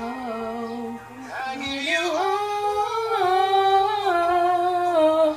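A woman singing unaccompanied, holding long notes that glide up and down in pitch, with a brief break about a second in.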